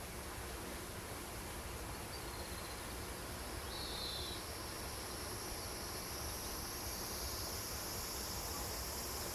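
Outdoor insect chorus shrilling steadily, with a high-pitched band that grows louder from about halfway through. A short high chirp sounds about four seconds in.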